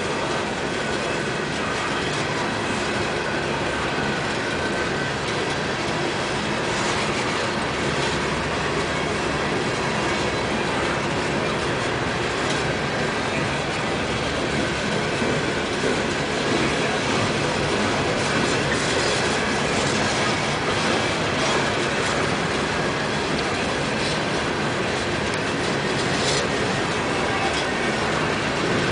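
Loaded-or-empty CSX coal cars of a freight train rolling past, steel wheels on rail giving a steady rolling noise with clickety-clack over the rail joints and a few sharp clicks.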